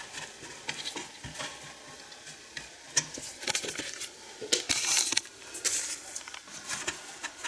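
Light clicks, taps and scrapes of wooden pegs and wooden furniture parts being handled and pushed into their holes, with a longer scraping rustle about five seconds in.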